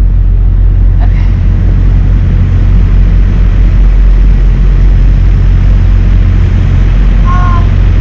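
Heavy diesel engine idling, a loud, steady low drone. A short high tone sounds briefly near the end.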